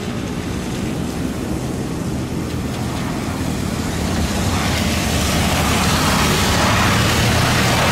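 Boeing 737 jet airliner on its landing roll along a flooded, rain-soaked runway: a steady engine drone, then about four seconds in a louder roar swells as the jet rolls out through the water, throwing up spray.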